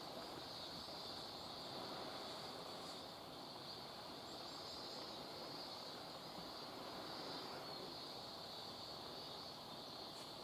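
Distant insect chorus: a steady, unbroken high-pitched drone over faint outdoor background noise.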